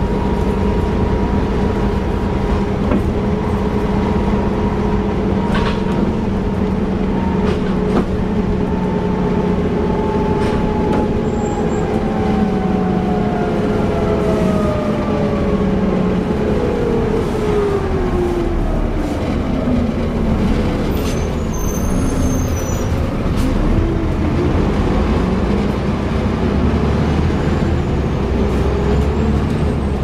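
Bus engine and ZF automatic gearbox heard from inside the saloon, running with a steady whine that slides down in pitch over several seconds as the bus slows, then starts climbing again near the end as it picks up speed.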